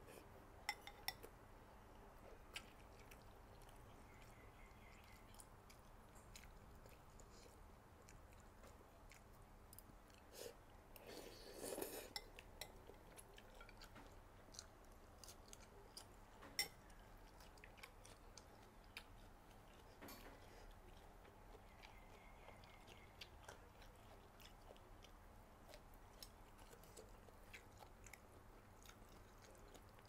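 Faint close-miked chewing of rice noodles and raw vegetables, with some crunching, and scattered small clicks of a metal fork and spoon against a ceramic bowl.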